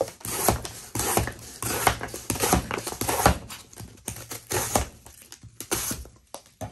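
Cleaver-bladed folding knife slicing through double-wall corrugated cardboard in a run of quick strokes, about two a second, with a short pause around four seconds in.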